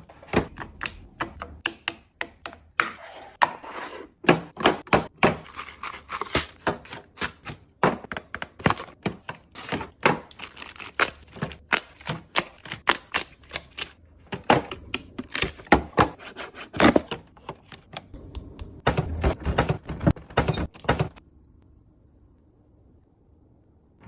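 Irregular clacks, taps and thunks of food containers and items being set down and arranged in a refrigerator while it is restocked. They stop about three seconds before the end, leaving only a faint low hum.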